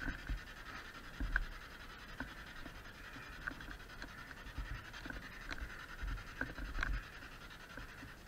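Faint steady hiss with a few dull low thumps and small ticks from footsteps and handling of a handheld camera as it moves through the bunker; the loudest thumps come about a second in and again around six to seven seconds.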